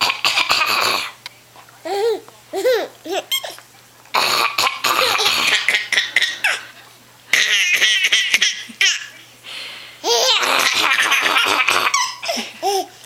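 A woman coughing in repeated harsh fits, and a baby laughing in short, high, rising-and-falling giggles between them.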